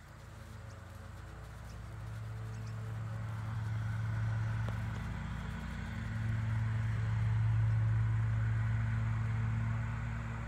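Steady low engine hum, swelling around four seconds in and again around eight seconds in, then fading.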